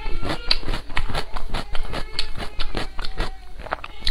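Close-miked chewing and lip smacking of soft skewered food, a dense run of quick irregular clicks and smacks.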